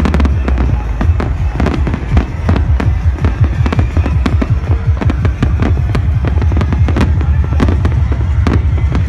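Rapid barrage of fireworks: many sharp bangs and crackles a second, without a break, over the heavy bass of dance music.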